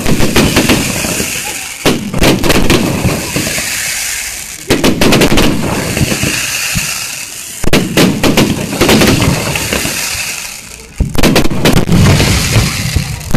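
Aerial fireworks shells bursting, a fresh volley of sharp bangs about every three seconds (about 2, 5, 8 and 11 seconds in), each followed by a crackling tail that fades before the next.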